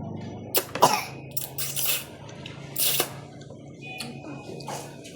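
A person eating spicy ramen noodles: a series of short, hissing slurps and sucked-in breaths, over a low steady hum.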